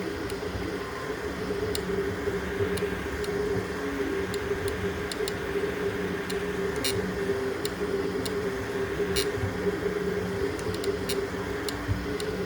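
3D printer running: a steady motor hum with fan noise and scattered small clicks.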